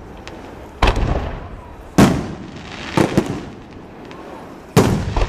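Aerial fireworks shells bursting overhead: five sharp bangs, roughly a second apart with two close together near the middle, each trailing off in a rolling echo.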